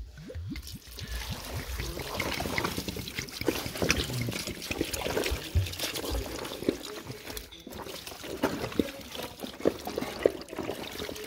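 Pomegranate juice poured from a bottle, trickling over raw pork chunks and onion in a plastic bowl, with many short wet clicks as a hand works the meat; the loudest clicks come near the end, as juice is tipped from a carton.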